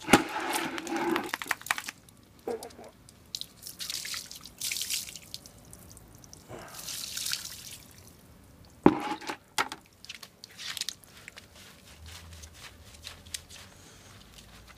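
Water splashing and dripping during a dog's bath, with short hissing bursts of water and scattered small knocks. A sharp knock comes about nine seconds in.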